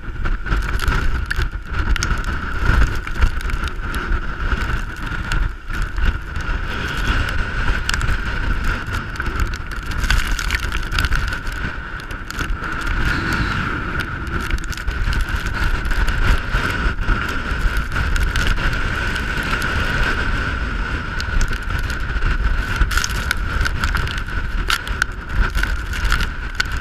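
Strong wind buffeting the microphone of a camera on the deck of a sailing catamaran in very strong trade winds, with water rushing past the hulls. A steady high-pitched whine runs underneath.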